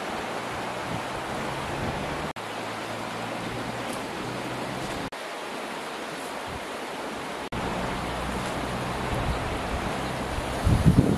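Wind noise on the microphone outdoors: a steady rushing hiss that breaks off for an instant three times, with louder low buffeting near the end.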